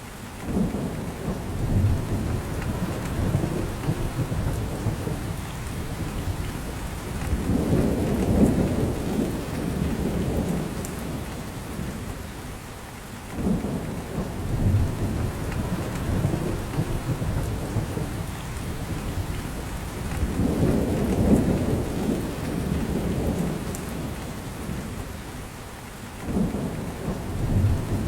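Steady rain falling, with a deep rumble that swells and fades about every 13 seconds, three times over.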